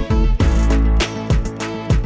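Background music: an upbeat track with a bass line, guitar and drum hits.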